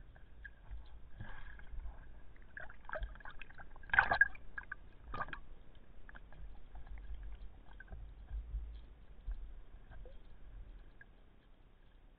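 Underwater sound picked up by a diving camera: a low rumble with scattered faint clicks and crackle, and two sharp knocks about four and five seconds in, from the spearfisher handling the speargun and its shooting line.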